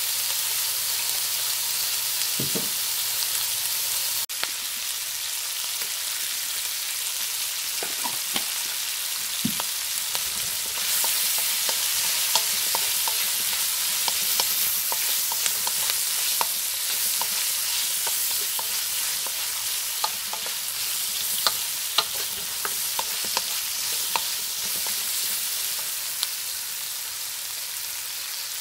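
Chopped onion and green capsicum frying in hot oil in a wok, a steady sizzling hiss, stirred with a wooden spoon. Scattered light clicks come through the middle and later part.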